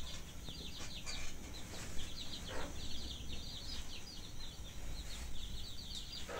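Birds chirping: a rapid, continuous run of short, high, falling chirps in clusters, over a low steady background rumble.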